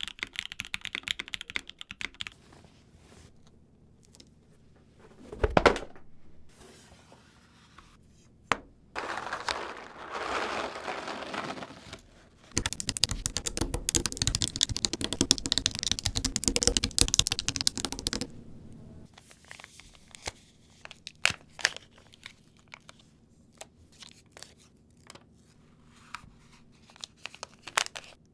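Hands handling and assembling a custom mechanical keyboard: crinkling and tearing sounds with clicks and knocks of parts, a dense stretch of rapid clicking in the middle, then scattered single clicks.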